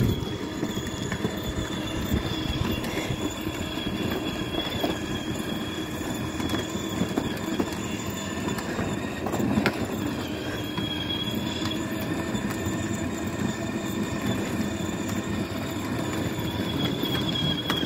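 Children's battery-powered ride-on toy car driving on asphalt: a steady high electric-motor whine over the rumble of its wheels rolling on the rough surface, with one bump about halfway through.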